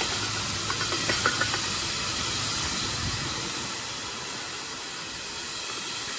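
Shelled corn pouring out of the opened gates of a hopper-bottom grain trailer into a grain pit, a steady rushing hiss that eases a little after the middle as the trailer runs nearly empty, with a few light clicks about a second in.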